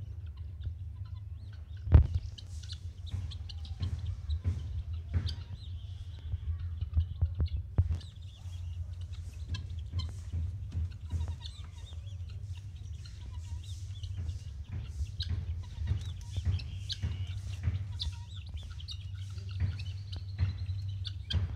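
Helmeted guineafowl calling with short, harsh notes repeated on and off, over a steady low rumble, with one sharp knock about two seconds in.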